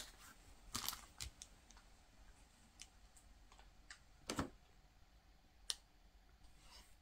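Faint scattered clicks and taps of hard plastic from a handheld radio and its detached battery pack being handled, the loudest about four and a half seconds in.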